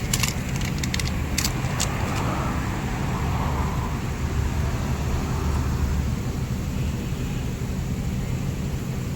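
Steady low hum of vehicles and road traffic, with a few sharp clicks in the first two seconds.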